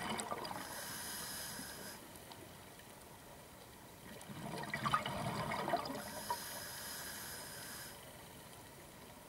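Scuba diver breathing through a regulator, recorded underwater: two hissing inhales, and a burst of bubbling exhalation about four seconds in.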